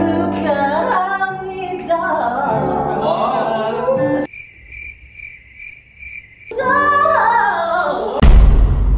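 A young man singing into a handheld microphone over keyboard accompaniment, climbing into a very high, thin held note for about two seconds in the middle. Near the end a loud low rumble breaks in.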